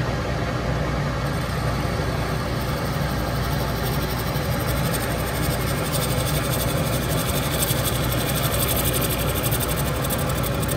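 Metal lathe running while a boring bar cuts inside a bushing held in the chuck: a steady motor hum, with a high-pitched cutting hiss that comes in about a second in and grows louder after about six seconds.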